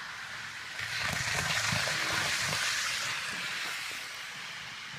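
ICE 3 model train running past on the track: its electric motor and wheels rattling on the rails. It gets louder about a second in as it passes close, then fades.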